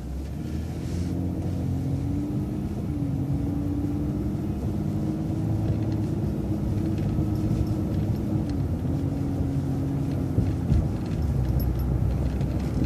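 City transit bus driving, heard from on board: a steady low engine and road rumble with a whine that climbs and drops back twice as it pulls along.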